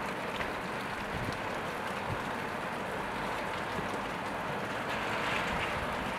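Steady rain falling on a wet street, an even hiss, with the swish of a car's tyres on the wet road swelling slightly about five seconds in.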